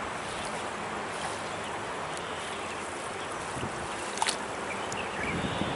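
Shallow river water rushing steadily, with a short sharp click about four seconds in.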